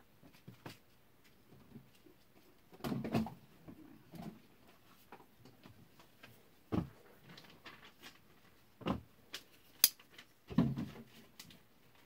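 Cold Steel Code 4 folding knife with aluminium handles being handled: scattered soft knocks and rubbing of fingers on the handle, with a sharp click near the end as the blade is swung open and locks.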